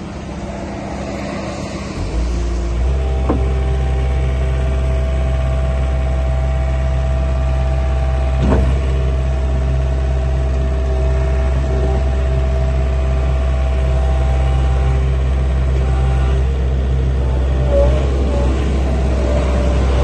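Gehl R165 skid steer's diesel engine running, picking up revs about two seconds in and then holding steady while the loader arms raise the bucket. Two sharp knocks stand out, a second or so after the revs rise and again about eight seconds in.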